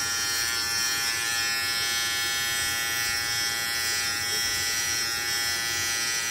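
Philips BT3221/15 cordless beard trimmer running with a steady buzz, its titanium blade drawn over the stubble on the jaw and neck with no comb fitted.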